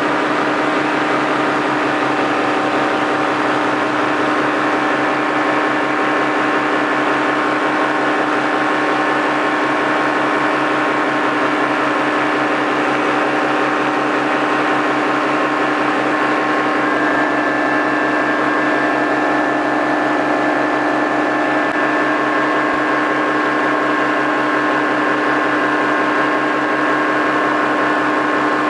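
Paramotor engine and propeller running steadily in flight, a constant droning hum with a small shift in its tone about two-thirds of the way through.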